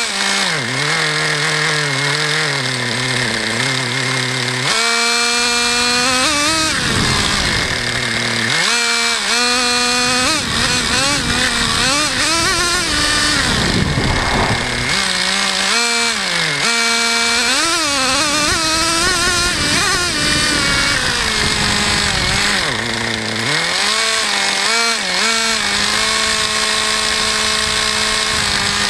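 Traxxas Jato 3.3 RC truck's small nitro engine running, its pitch rising and falling again and again as the throttle is worked, then holding a steadier note near the end.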